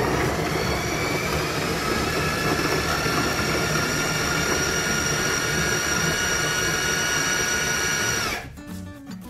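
Food processor motor running with its S-blade chopping raw carrot chunks: a steady whine that climbs a little in pitch over the first couple of seconds as the motor comes up to speed, then holds until it cuts off about eight seconds in.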